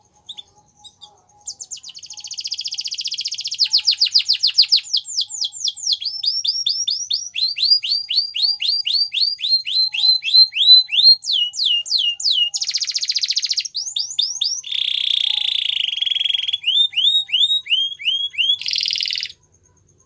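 A domestic canary singing a long song of rapid trills. Each trill is a quick run of the same downward-slurred note, switching to a new trill every second or two, with a few harsher buzzing rolls mixed in. It begins about a second and a half in and cuts off just before the end.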